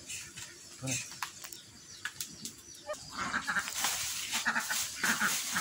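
Animals calling, with several short calls starting about halfway through.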